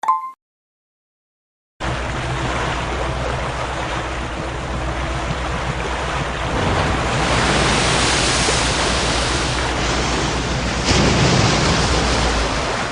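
A steady rushing noise with a low hum under it, starting abruptly about two seconds in after a short blip, and growing a little louder about halfway through.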